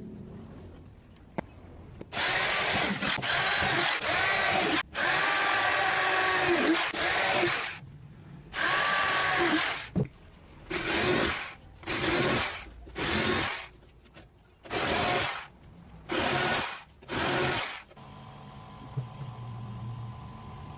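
Electric power tool motor running in repeated bursts: two long runs of about three seconds each, then a string of shorter bursts of about a second, its pitch dipping and recovering as it takes load.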